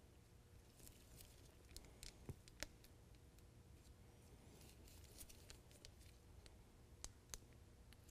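Faint handling sounds of nitrile-gloved hands rubbing lithium grease onto the square steel shank of a gooseneck hitch ball, with soft rubbing and a scattering of light clicks.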